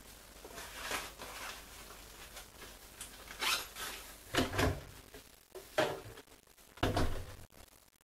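Cloth rustling and hollow knocks as a bundled object is pushed into the drum of a front-loading washing machine, then the machine's door is shut with a thump near the end.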